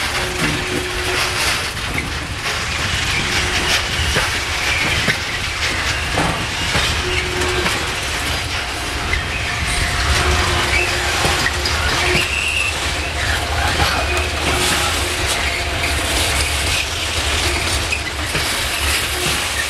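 Heavy coal train of loaded open wagons rolling slowly while being shunted by an ST43 (Electroputere 060-DA) diesel-electric locomotive. The wheels clack over rail joints and give short squeals over a steady low rumble.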